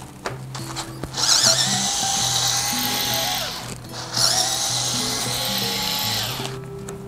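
Ryobi cordless electric screwdriver running in two bursts of about two and a half seconds each, with a short pause between, backing out a cantilever brake mounting bolt on a bicycle fork.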